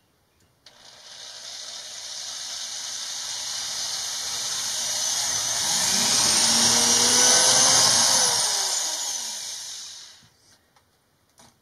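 DeWalt electric drill running for one long stretch as its bit drills a hole through the cabinet's side panel. The motor whine builds toward the end, then its pitch slides down as the trigger is released and the motor spins down.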